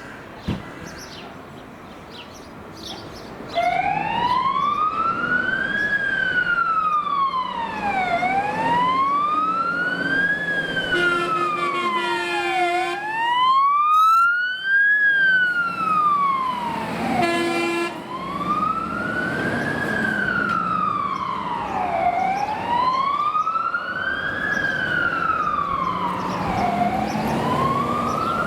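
Fire engine siren starting a few seconds in and sounding a slow wail, rising and falling about every four and a half seconds. Two air horn blasts sound over it: a long one of about two seconds, then a short one.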